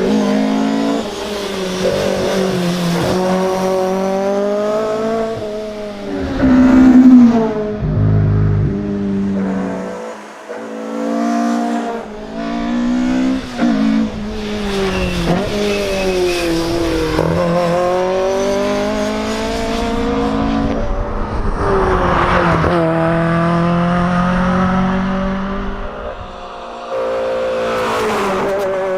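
Fiat 131 Abarth Rallye's twin-cam four-cylinder engine driven hard, revving up and dropping back again and again through gear changes, with a few brief lifts off the throttle about a third of the way in.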